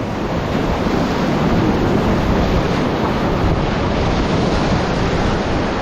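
Whitewater of a Class IV river rapid rushing steadily and loudly.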